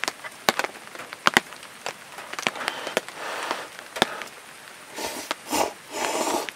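A person slurping instant ramen noodles and broth from a bowl, several short slurps between about five and six and a half seconds in, over scattered sharp ticks.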